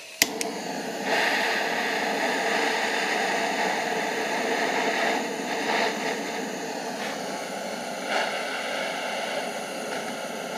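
Steady pressurised spraying hiss as engine parts are cleaned. It begins with a click just after the start and grows louder about a second in.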